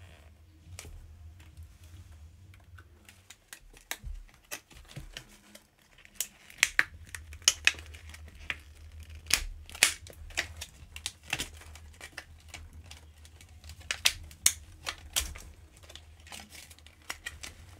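Clear plastic doll packaging crinkling and crackling in sharp, irregular snaps as it is worked off a doll's head by hand. The crackles come thicker in the second half, over a low steady hum.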